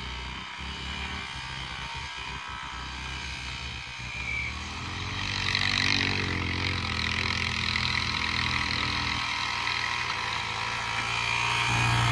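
Small engines of three-wheeler ATVs running in the distance, growing louder about five seconds in as one revs and comes closer.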